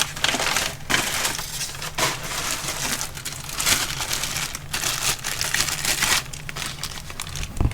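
Packing paper and cardboard rustling and crinkling in irregular handfuls as parts are unwrapped by hand, with a low thump near the end.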